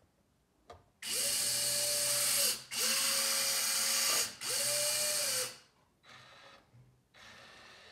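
Electric motors and gearing of an RC Volvo EC160E excavator whining as the bucket is curled: three runs of about a second and a half each, each holding a steady tone with a high, grinding hiss, then a fainter run near the end. The machine is quite noisy, as electric RC excavators are.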